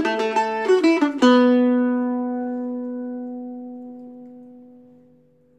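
Weber octave mandolin flatpicked: the last quick notes of an Irish reel, then a final note struck about a second in and left to ring, fading away over about four seconds.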